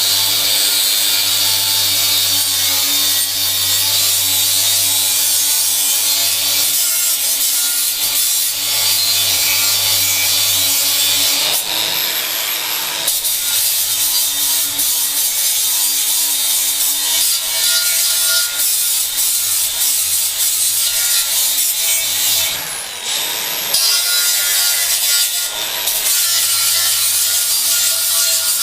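Milwaukee cordless angle grinder running with a sanding wheel pressed against a surface: a steady motor hum under a harsh grinding hiss. The grinding changes briefly around 12 and 23 seconds in, as the wheel comes off the work and the motor's high whine shows through.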